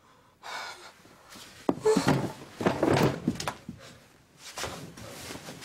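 Rustling, bumps and knocks of a person hurriedly rummaging through a bedroom, with sharp thunks like a drawer or door about two and three seconds in.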